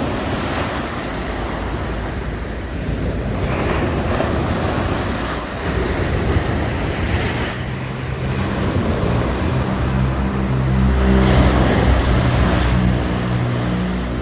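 Sea waves breaking and washing ashore in repeated surges. From about eight seconds in, the steady hum of an engine runs underneath.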